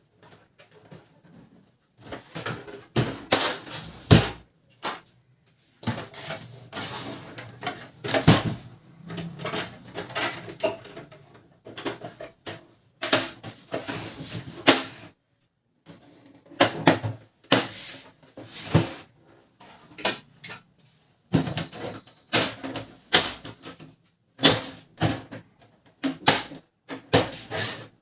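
Hard plastic and metal printer parts being handled and fitted by hand: irregular clicks, knocks and short rattles in clusters, with brief pauses.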